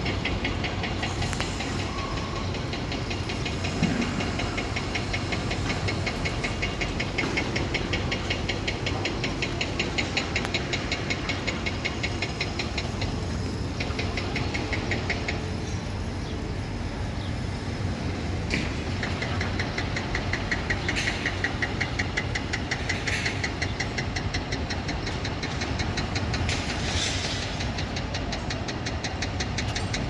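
Construction-site machinery: a steady low rumble of heavy engines with a fast, even rattle that comes and goes.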